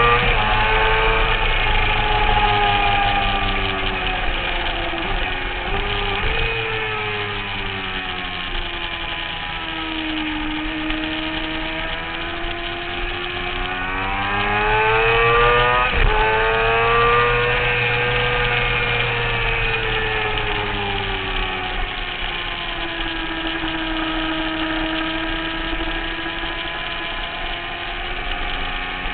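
Motorcycle engine at speed on a track lap, heard through its onboard camera. The revs fall away about ten and twenty-four seconds in and climb again between, over a steady rush of wind noise.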